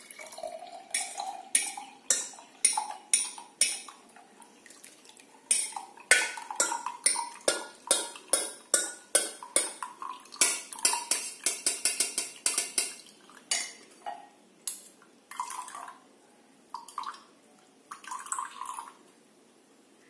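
Boiled vasaka-leaf decoction being strained into a cup: a run of quick kitchen-utensil clinks and scrapes against the strainer and cup, densest in the middle and thinning out toward the end, with some liquid pouring and dripping.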